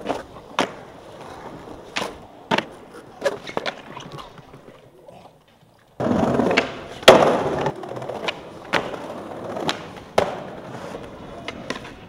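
Skateboard wheels rolling and clattering, with sharp clacks of the board and trucks hitting concrete. After a brief drop out about five and a half seconds in, the wheels rumble loudly over cobblestones, with the loudest slap a second later, then a run of evenly spaced clicks as the board rolls over the paving joints.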